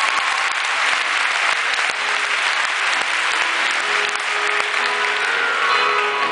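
Audience applauding, a dense steady clapping, over the skater's performance music; near the end the clapping thins and the music's notes come through clearly.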